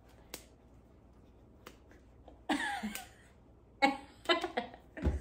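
A sharp finger snap, then short wordless vocal sounds from a woman (playful exclamations rather than words), ending with a dull low thump.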